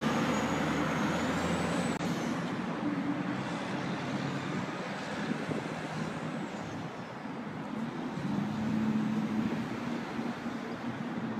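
City street traffic with the steady hum of a large vehicle's engine, such as a truck or bus, swelling near the start and again about eight seconds in.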